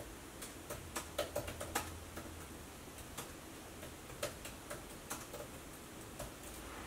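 Typing on a laptop keyboard: irregular light key clicks, quicker in the first couple of seconds, then sparser.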